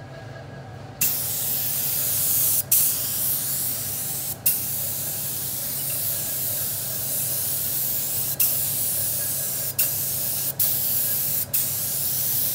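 DeVilbiss SRi Pro Lite spray gun spraying leather paint, a loud hiss of compressed air and atomised paint that starts about a second in. It goes in long passes broken by several brief gaps where the trigger is let off.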